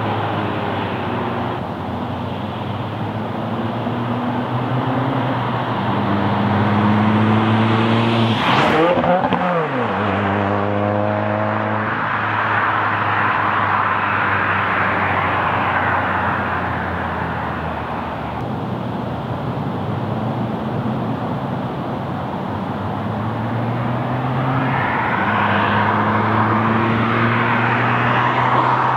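2018 Subaru WRX with a Nameless Performance 3-inch axleback muffler delete, its turbocharged flat-four engine running and revving as the car drives by. Its pitch sweeps up and then drops sharply as it passes close, about nine seconds in. The engine note fades as the car drives away, then builds and rises again near the end as it comes back.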